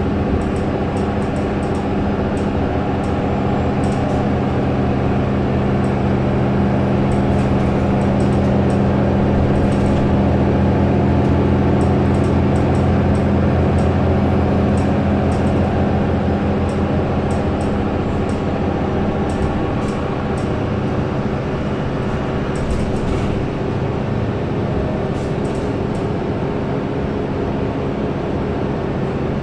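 Mercedes-Benz O530 Citaro city bus heard from inside the cabin while under way: a steady low engine drone that swells a little toward the middle and then eases off, with scattered light clicks and rattles.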